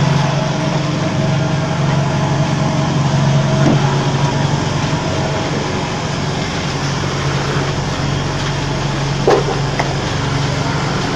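Concrete vibrator table running with a steady, loud hum under plastic paver moulds filled with wet concrete. A short knock comes about nine seconds in.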